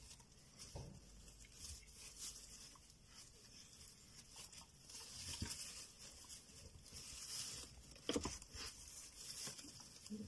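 Faint rustling and pattering in straw bedding as a dog shifts and nuzzles in its kennel, with one soft knock a little after eight seconds in.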